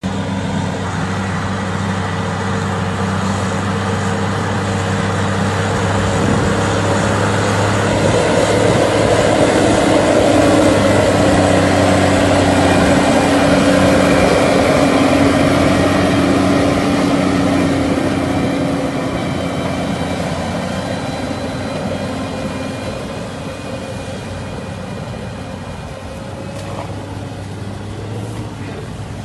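Diesel engine of heavy farm machinery running steadily, growing louder about a third of the way in and easing off again after the middle.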